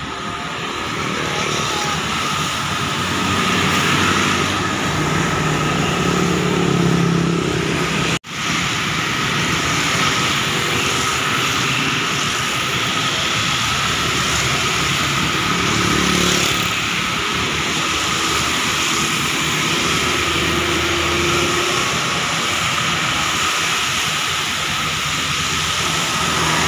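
Steady highway traffic on a wet road: motorcycles, cars and buses driving past, their engines over the hiss of tyres on wet pavement, with a bus passing close near the end. The sound breaks off for an instant about eight seconds in.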